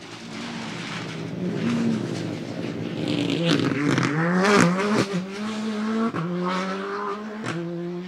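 Rally car engine passing close at full stage speed. About three and a half seconds in the pitch drops as it comes off the throttle and shifts down for the corner, with a few sharp cracks from the exhaust. It then accelerates away, its pitch climbing, with a clean upshift near the end.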